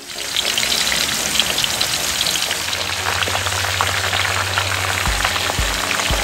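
Whole quails deep-frying in a wok of hot oil: a dense, steady sizzle with many fine crackles of spitting oil.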